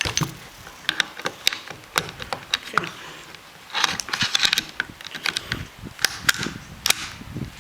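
Irregular sharp metallic clicks and clacks as a Mosin-Nagant rifle's bolt and headspace gauges are handled, with a short stretch of rustling about four seconds in.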